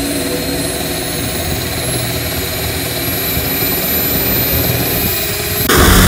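Model jet turbine running with a steady high whine over a low rumble. Near the end the sound jumps abruptly louder and rougher.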